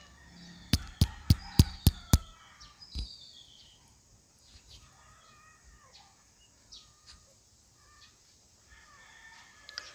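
Sharp clicks from fingers handling a headset's small microphone and its cable: six in quick succession about a second in, then one more a second later. Faint bird calls and chirps sound in the background.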